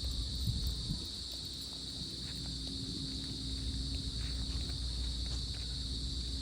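Crickets and other insects in a steady high-pitched chorus over a low steady rumble of wind and water, with scattered faint ticks and taps.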